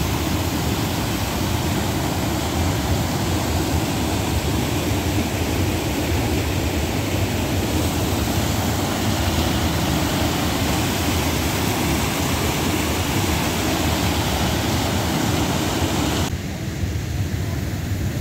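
White-water rapids of a small forest river rushing steadily. Near the end the sound cuts abruptly to a quieter, thinner rush.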